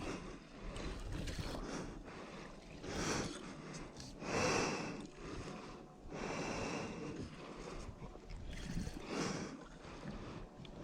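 A person breathing hard, several heavy breaths a couple of seconds apart, from the strain of fighting a strong fish on rod and reel.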